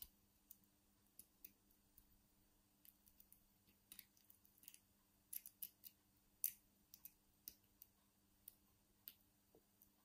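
Faint, irregular metallic clicks and ticks of a lock pick working the pins of a five-pin Asec Euro half cylinder lock, busiest about halfway through.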